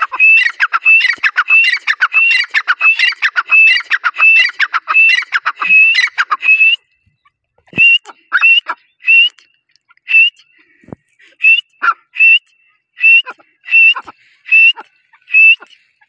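Francolin calling loudly with repeated whistled notes: a fast, dense run for about seven seconds, then after a short pause, single calls spaced about half a second to a second apart.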